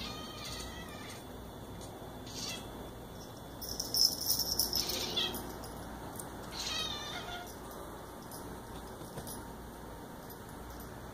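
Bengal cat chirping: about four short, high, warbling calls, the loudest about four seconds in and the last falling in pitch.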